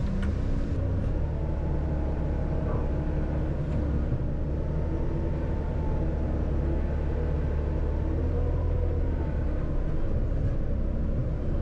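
Construction machine's diesel engine running steadily at work, with faint whining tones drifting in pitch above the low hum. The machine is running cold, its hydraulic fluid still thick and the controls slow to respond.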